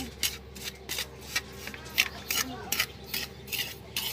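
Metal spoon scraping and stirring through dry polvoron powder in a metal wok, with quick rasping strokes about three times a second.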